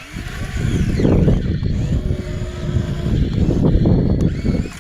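Heavy construction machine's diesel engine working under load, a loud rumble that swells just after the start, with faint high metallic squeals.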